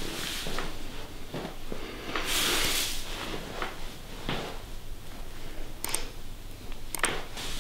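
Rustling and handling noises, with a hissy rush of about half a second early on and a few sharp clicks near the end.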